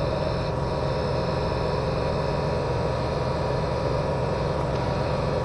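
A motor running steadily, with an even hiss over a low hum and no change in pace.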